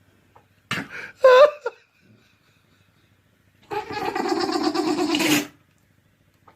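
An animal's odd vocal noises: two short squeaky calls about a second in, then one long hoarse call lasting almost two seconds.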